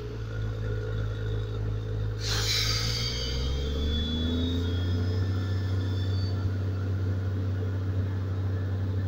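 A steady low engine drone, with a brief falling whoosh about two seconds in.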